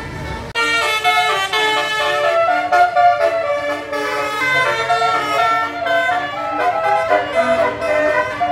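Bus telolet horn playing a quick melody of stepped, trumpet-like tones, starting suddenly about half a second in.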